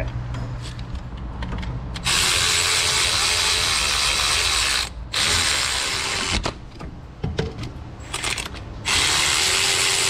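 Cordless electric ratchet running bolts into an engine mount bracket in spurts of one to three seconds, with clicks and tool handling in between.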